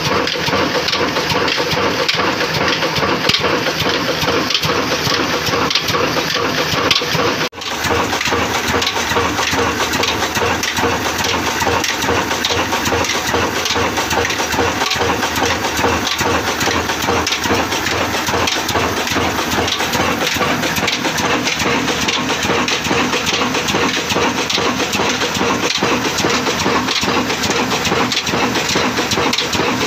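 Old Ruston Hornsby single-cylinder horizontal diesel engine running steadily, its heavy flywheel turning, a loud continuous clatter of rapid knocks.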